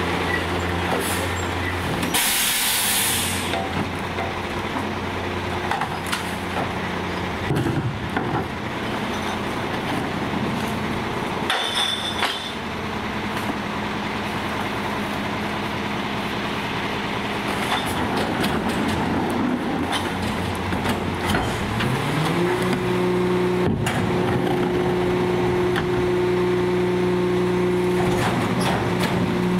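Battle Motors LET2 rear-loader garbage truck's engine idling, with a sharp air-brake hiss about two seconds in. About twenty-two seconds in the engine speeds up and holds a steady higher speed.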